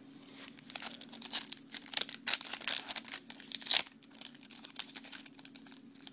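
Plastic-foil wrapper of a baseball card pack being torn open and crinkled by hand, an irregular run of crackles with the loudest tears a little after two seconds and near four seconds in.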